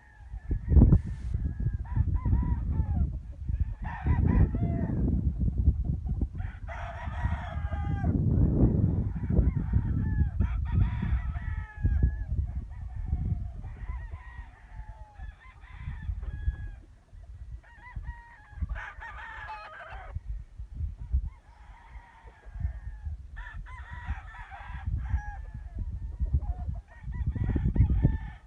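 Roosters crowing again and again, with clucking between the calls, over a heavy low rumble.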